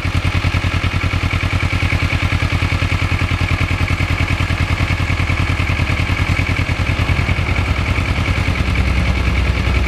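Kawasaki Ninja 650R's parallel-twin engine running steadily under way, with a fast, even throb. The low end swells a little near the end.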